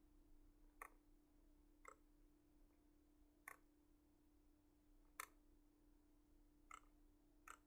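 Faint computer mouse clicks, six of them at uneven intervals, over a faint steady hum.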